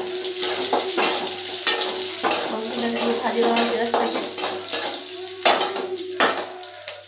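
Metal spatula scraping and knocking against a steel kadai as garlic cloves are stirred and fried in sizzling oil, with repeated strokes a little under two a second, the loudest near the end.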